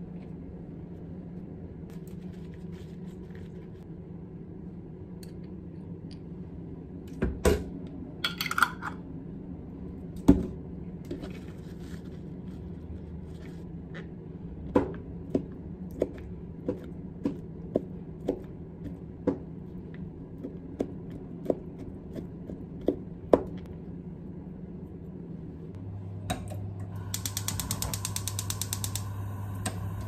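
A kitchen knife chopping capers on a plastic cutting board, about a dozen even chops, after a few scattered knocks. Near the end, a gas stove's igniter clicks rapidly for a couple of seconds as the burner is lit.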